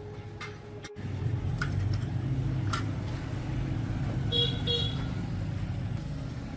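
Motorcycle engine running with a steady low rumble, and two short horn beeps in quick succession about four and a half seconds in.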